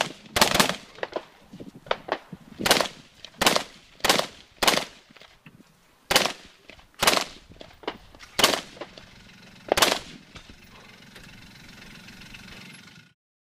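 Rifle shots fired one at a time at uneven intervals, about nine in ten seconds, each with a short echo, during a competitor's run on an IPSC rifle stage. The sound cuts off abruptly near the end.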